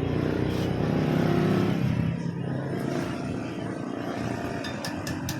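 Bajaj CT100 single-cylinder four-stroke engine running, rising a little about a second in and settling back after two seconds, with a few sharp clicks near the end.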